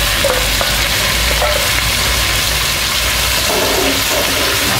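Chunks of eggplant and potato frying in a pan with a steady sizzle while a metal spatula stirs them through the spices.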